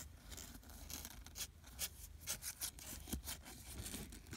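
Irregular scratchy rustling and rubbing, several short scuffs a second: kittens' claws and fur scuffling against their mother and the fabric-lined cardboard box as they wrestle.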